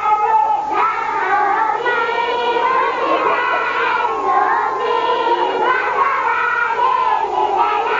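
A crowd of many voices, children among them, shouting and singing over one another at a steady, fairly loud level.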